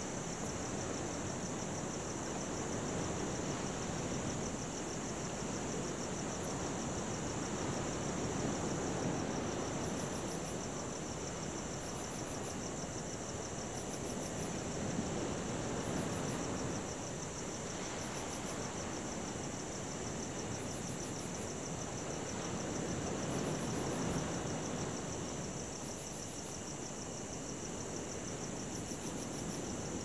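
Crickets trilling steadily over the wash of ocean surf, the waves swelling and falling back every several seconds. From about a third of the way in, a shorter, higher chirp repeats every two to three seconds.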